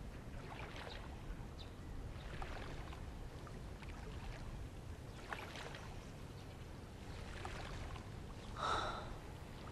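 Faint outdoor ambience: a low steady rumble with scattered faint sounds, and a short breathy sound, like a sigh, near the end.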